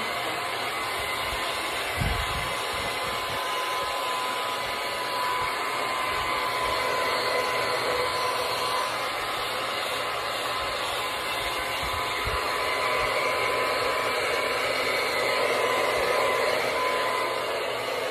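Handheld hair dryer blowing steadily, a rush of air with a thin steady whine from its motor, and a couple of dull low bumps.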